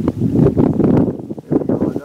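Wind buffeting the microphone: a loud, gusty low rumble that surges and drops irregularly.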